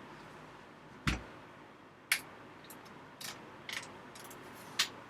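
Sharp metal clicks and knocks from a Mossberg Maverick 88 pump shotgun's barrel being worked onto the receiver and magazine tube. There are about five separate clicks; the heaviest, about a second in, has a dull thud.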